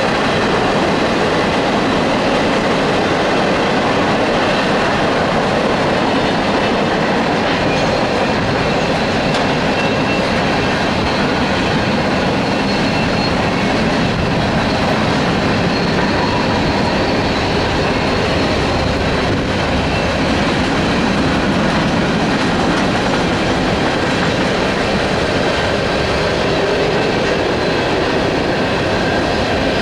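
A long Union Pacific freight train rolling steadily past at close range, its freight cars' wheels running over the rails.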